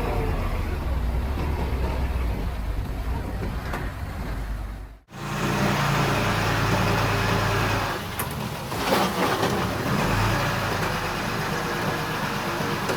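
Diesel engines of heavy earthmoving machinery running steadily. The sound cuts out abruptly about five seconds in and comes back with a different engine note.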